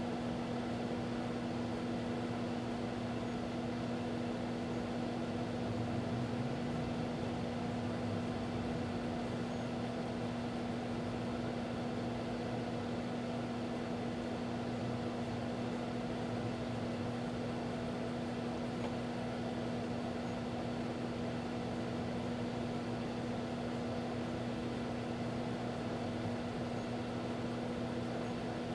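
A 1987 GE microwave oven running with a steady hum and a strong low tone.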